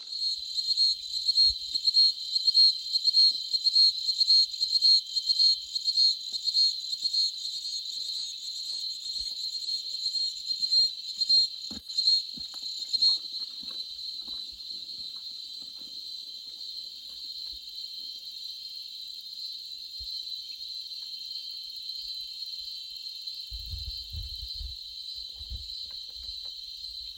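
Loud, high insect chorus buzzing steadily, pulsing in waves for the first half while a second, higher insect joins in, then settling to an even drone. A few faint low rumbles near the end.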